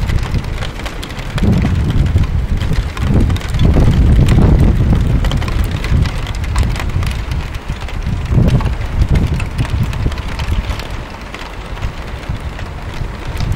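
Wind buffeting the microphone in gusts, strongest in the first few seconds, over a steady hiss of rain with small patters of drops.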